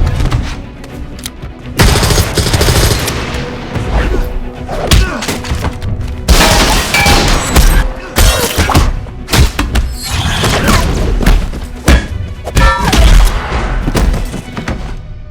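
Layered movie fight sound effects: a dense run of punches, thuds and heavy impacts, some with a short metallic ring, over a music score.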